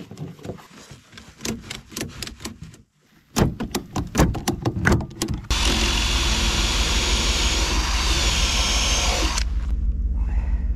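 A string of clicks and knocks as a metal strap hook is handled in a pickup bed. Then, about five seconds in, a cordless drill runs steadily into the wooden rack frame for about four seconds, its pitch bending under load near the end before it cuts off suddenly.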